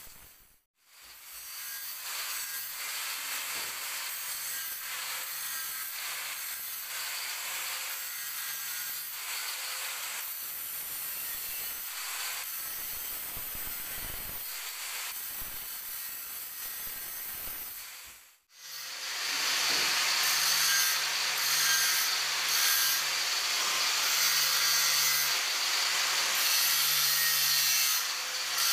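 Electric angle grinder with an abrasive disc grinding along the edge of a granite countertop to shape a bevel: a steady hissing grind with the motor's hum beneath. It cuts out briefly just after the start and again about two-thirds through, coming back louder.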